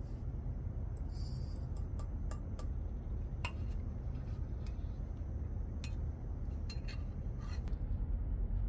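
Light metallic clinks and clicks, scattered and irregular, as small metal coffee-making utensils are handled, over a steady low rumble.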